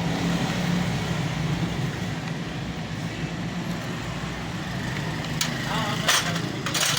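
Steady hum of a vehicle engine running nearby, with a few short sharp clicks of hand tools on metal near the end as the timing-gear screws of a Honda CD70 engine are undone.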